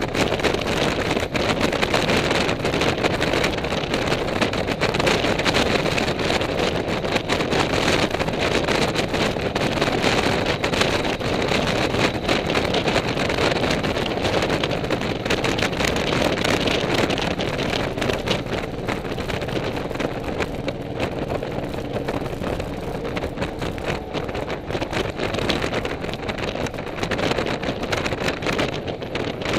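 Steady wind rushing over the microphone of a moving motorcycle, with the motorcycle's engine running underneath at an even cruising speed.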